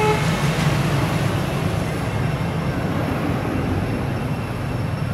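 A steady low rumble, with a brief high tone right at the start.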